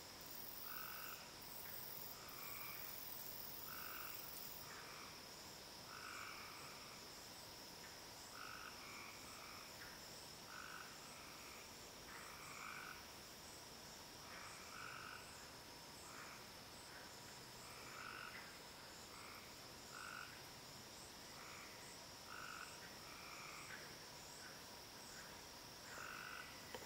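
Faint evening chorus of frogs and insects: short calls repeating irregularly, one or two a second, over a steady high-pitched insect drone.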